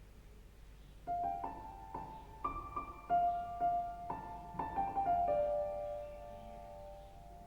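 Piano music played back over Focal Sopra 3 loudspeakers and picked up by room microphones. After about a second of quiet, single piano notes begin, each struck and left to ring.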